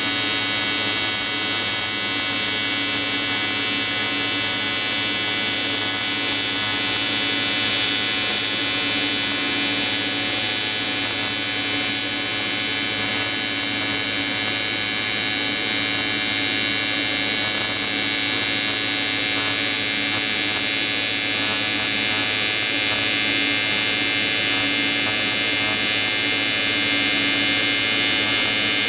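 AC TIG welding arc buzzing steadily, an Everlast 325EXT running advanced square wave with pure argon shielding, welding aluminium intercooler parts.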